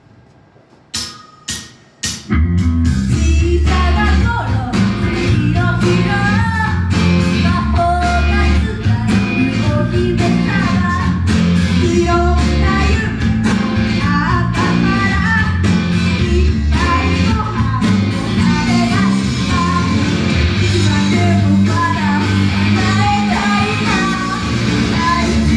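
Rock-style idol pop music at full volume. Three sharp hits about a second in, then the full track with guitar and bass comes in, with a sung melody over it.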